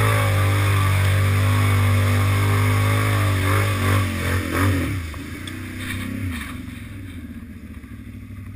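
Can-Am Renegade 800R ATV's Rotax V-twin engine held at high revs as the quad churns through deep mud and water. About three seconds in the revs rise and fall several times, then drop away about five seconds in, leaving the engine running much quieter near the end.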